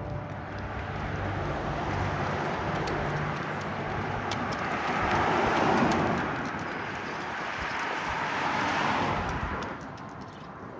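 A road vehicle passing by, its tyre and engine noise swelling to a peak and fading away near the end. The low hum of the church bells dies out in the first few seconds.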